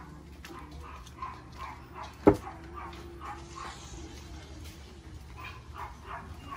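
Dog barking and yipping repeatedly in short calls, with one sharp knock a little over two seconds in.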